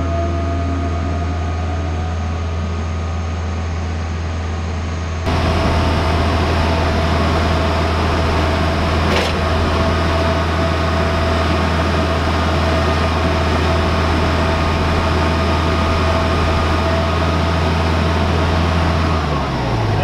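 Electric air compressor running with a steady motor hum and a whining tone. It gets louder about five seconds in, then shuts off near the end, its pitch sliding down as the motor winds down.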